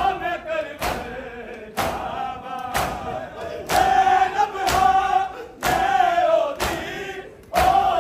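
A crowd of men beating their bare chests with their hands in unison during matam, the slaps landing together as one sharp strike about once a second. Between the strikes, massed male voices chant a mourning lament.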